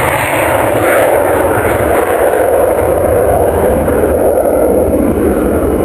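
Aircraft flying overhead: a loud, steady roar that grows duller toward the end.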